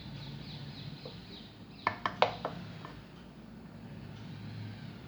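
A serving spoon knocks and clinks against cookware while rice and prawns are dished out: four or five quick knocks about two seconds in, over a low steady hum.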